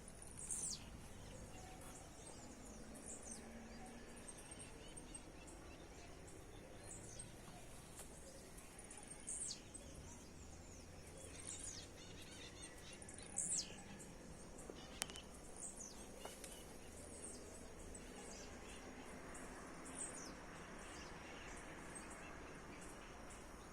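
Birds chirping faintly: short, high, downward-sliding calls repeated every second or two over a steady low background hiss.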